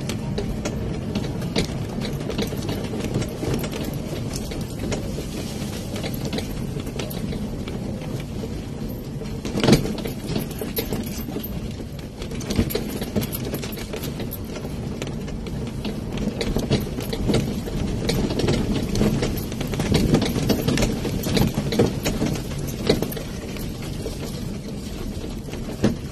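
EMC Golf riding over a rough concrete lane: a steady low rumble of road and wind noise, with scattered knocks and rattles from the body and the newly fitted swing-arm suspension over bumps. The sharpest knock comes about ten seconds in.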